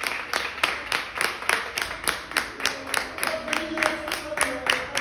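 A group of people clapping their hands together in a steady rhythm, about four claps a second.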